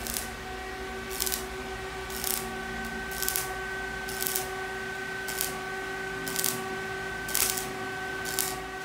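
Semi-automatic (MIG) welder tack-welding a steel floor plate onto a truck bed, each short crackling burst of the arc about a second apart, nine in a row. A steady hum of even tones runs underneath.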